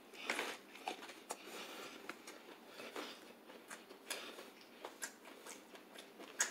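Close-miked chewing of crispy fried chicken: faint, scattered crunches and mouth clicks. A sharper click near the end as a plastic lid is pried off a small cup.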